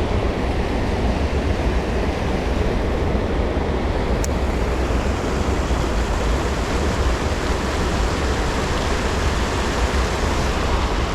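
Steady wind buffeting the microphone, with a deep rumble, over the rush of a high creek's current.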